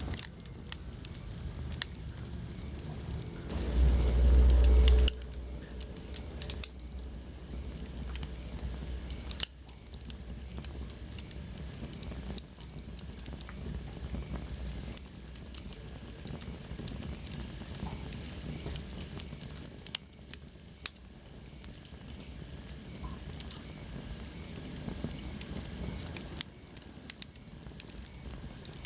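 Wood fire crackling, with scattered sharp pops and snaps over a steady hiss. About four seconds in, a loud low rumble lasts for about a second. About two-thirds of the way through, a faint high whistle slowly falls in pitch.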